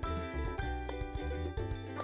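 Instrumental background music with a steady beat, pitched notes over a bass line.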